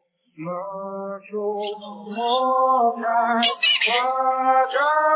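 A voice singing a melody in held, wavering notes, starting about half a second in.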